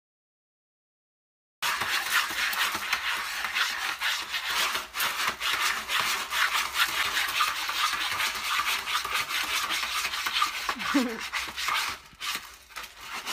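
A cat digging in a plastic litter tray of pellet litter: continuous rapid scratching and rattling of the pellets against the tray. It starts about a second and a half in and grows quieter near the end.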